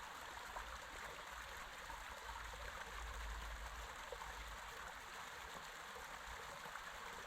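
Creek water rushing steadily over rocks at a small waterfall, with a low rumble underneath that swells about three seconds in.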